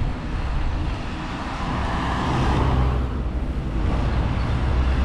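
Steady road traffic noise with a heavy low rumble.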